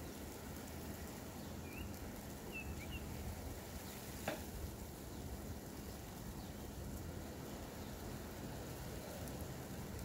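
Steady hiss of light rain falling on a street and lawns, with a few short bird chirps about two to three seconds in and a single sharp click about four seconds in.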